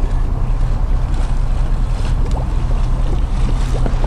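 Volvo Penta IPS diesel engines running steadily at low revs while the Dynamic Positioning System holds the boat on station, with wind on the microphone.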